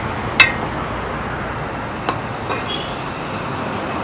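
Long metal ladle clinking against a large metal cooking pot while stirring mutton in ghee: one sharp, ringing clink about half a second in, then a few lighter clicks a couple of seconds later, over a steady hiss.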